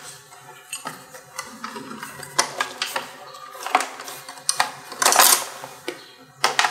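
Irregular clicks, taps and brief rustles of plastic wrapping and hard parts being handled while a new brush cutter is unpacked, with a louder crinkle about five seconds in.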